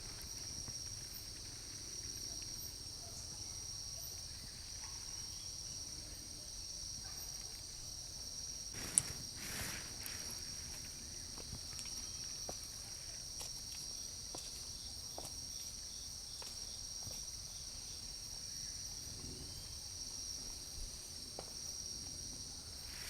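Steady insect chorus, a continuous shrill high-pitched drone, with one sharp click about nine seconds in.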